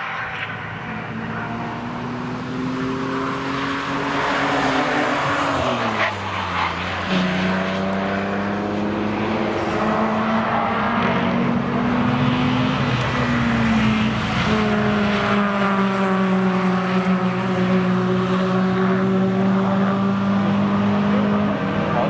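BMW car engines running hard on a race track as the cars go past. The engine note climbs over the first few seconds, drops sharply about six seconds in, then holds a high, fairly steady pitch with a brief change around thirteen seconds in.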